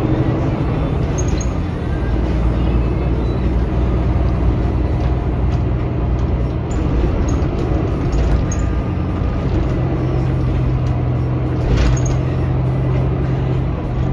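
Cabin noise of a Volvo B9R coach under way: the rear-mounted six-cylinder diesel engine and road noise make a steady low drone that shifts slightly in pitch a few times. Light interior rattles and clicks come through, with one sharper rattle near the end.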